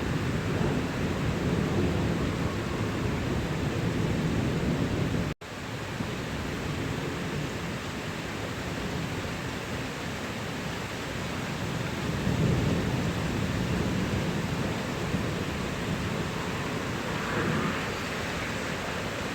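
Thunderstorm: steady heavy rain with low thunder rumbling, swelling near the start and again about two-thirds of the way through. The sound drops out for an instant about five seconds in.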